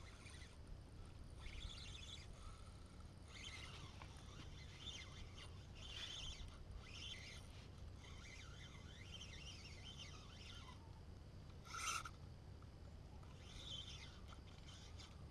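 Small birds chirping in repeated clusters of short, high notes, over a steady low rumble. One louder, sharp sound stands out near the end.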